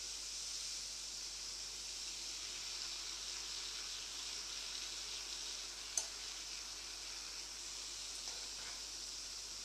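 Waffle batter sizzling inside a closed electric waffle iron, a steady hiss, with a single sharp click about six seconds in.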